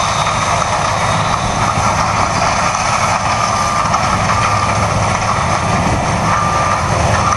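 Heavy harvest machinery running steadily: a loud, even drone with a low hum and a faint high whistle that comes and goes.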